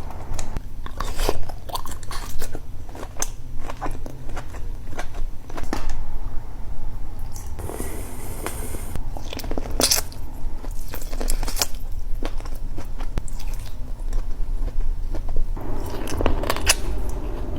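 Close-up mukbang eating sounds of a seafood boil: biting, chewing and crunching with many sharp clicks and cracks, over a low steady hum.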